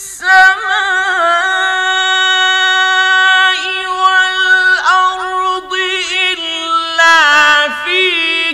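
A man's solo voice chanting Quranic verses in the melodic mujawwad style. He holds long, drawn-out notes that waver in ornamented turns, with short breaks between phrases.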